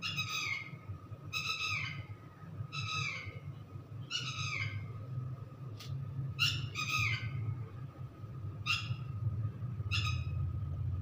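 Repeated short bird-like calls, one or two at a time every second or so, each dropping in pitch, over a steady low hum.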